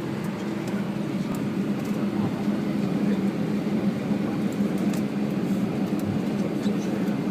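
Steady hum of an Airbus airliner with its jet engines running, carrying a low, even drone.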